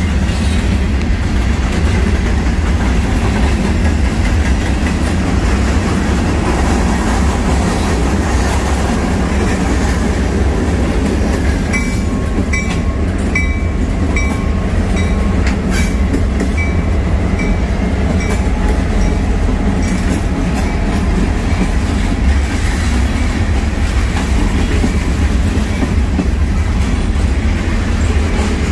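Freight train rolling past, a loud steady rumble with the wheels clacking over the rails. About halfway through, a run of short high ringing tones, about two a second, sounds for several seconds and fades away.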